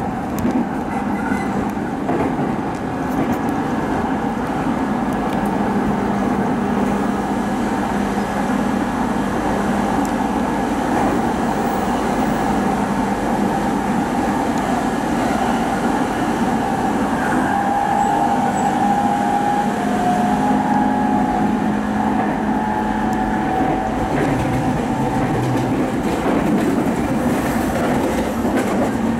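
Sobu Line electric commuter train heard from inside the carriage, running at speed past another train on the next track. A steady rumble of wheels on rail carries a low hum and a higher tone that grows louder for a few seconds past the middle.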